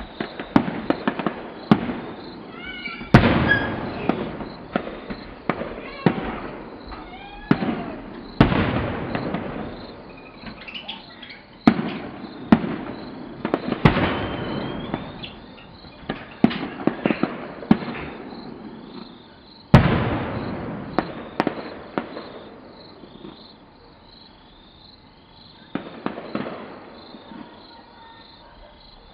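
Fireworks going off: a run of loud bangs, each trailing off in a long echoing tail, with quick clusters of smaller pops in between. The bangs thin out for a few seconds past the middle, then resume.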